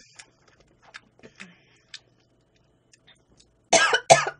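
Faint scattered clicks, then near the end a person coughs loudly twice in quick succession while eating spicy food.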